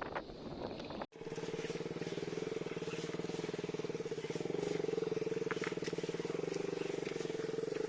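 Motorcycle engine running steadily while riding, starting abruptly about a second in, with a slight rise in level around the middle.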